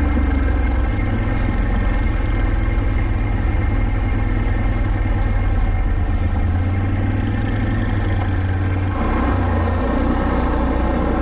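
ATV engine running steadily while it is ridden along a dirt trail. The engine note changes about nine seconds in.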